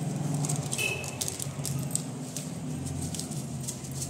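Light crinkling and rustling clicks from a plastic spice packet being handled and shaken over a plate of gram flour, over a steady low hum, with a brief high squeak about a second in.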